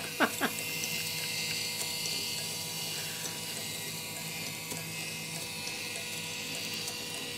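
Battery-powered DM13-1 inline four-cylinder model engine running under its motor: a steady mechanical whir from its turning crank, pistons and belt-driven pulleys.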